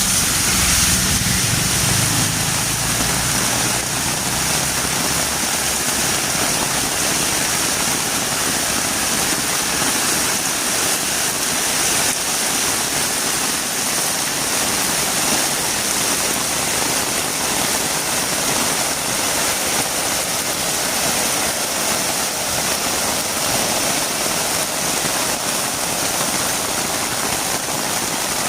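Heavy rain falling on a road, a steady even hiss. In the first few seconds the low hum of a vehicle's engine fades away.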